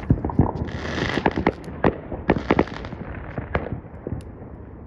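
Fireworks going off: a rapid, irregular string of sharp cracks and pops, with two short bursts of hiss about one and two and a half seconds in, thinning out near the end.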